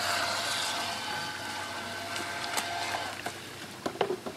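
Aquacraft EP-1 outboard motor on an RC boat running with a steady whine over the splash of its wake, fading and cutting out about three seconds in. A few short, sharp clicks follow near the end.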